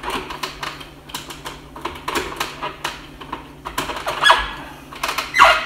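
Plastic parts of a food processor clicking and clattering as its bowl and lid are twisted and forced open, with irregular sharp clicks throughout. Two brief squeaks come about four and five and a half seconds in.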